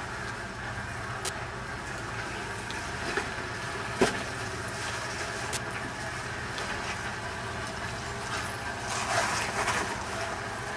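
Toyota Landcruiser engine running steadily at low revs as the four-wheel drive crawls down rock ledges. There is a single sharp knock about four seconds in, and a louder, rougher rush of noise around nine seconds in.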